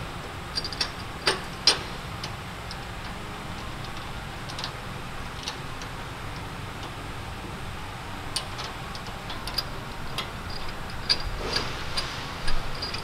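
Scattered light metal clicks and taps as the bearing caps and their bolts are fitted onto a Salisbury differential casing, over a steady low hum. The clicks come at irregular intervals, with a few sharper ones near the start and a cluster near the end.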